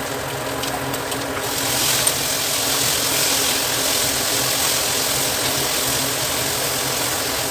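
Vegetables (carrots, capsicum and tomatoes) sizzling in a frying pan. The sizzle grows louder about a second and a half in, over a steady low hum.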